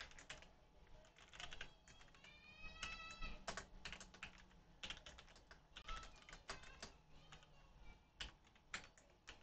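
Quiet keystrokes on a computer keyboard: irregular clicks as a line of code is typed. Faint high-pitched tone lasting about a second, rising slightly, a little after two seconds in.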